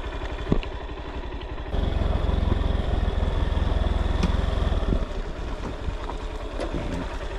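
Motorbike engine running with a rapid, even pulse. It grows louder for about three seconds from roughly two seconds in, then settles back.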